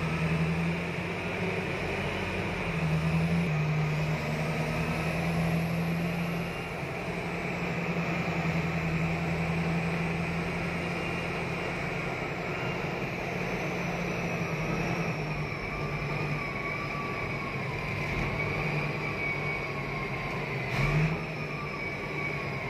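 Caterpillar 777 off-highway haul truck's diesel engine running under way, heard from inside the cab as a steady drone. A faint high whine rises and falls a few seconds in, and a brief knock comes near the end.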